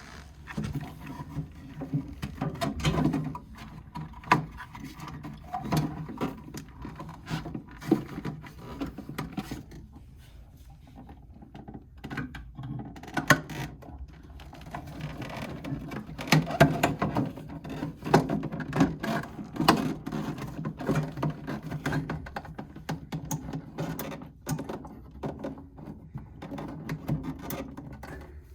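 Irregular clicks, knocks and rustling of small plastic and metal parts being handled while a replacement thermostat is fitted back into a mini fridge. There is a quieter spell about a third of the way through.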